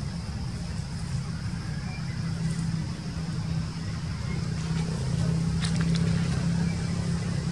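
Low, steady outdoor rumble that swells louder in the second half, with a steady high hiss above it and a couple of faint clicks near the end.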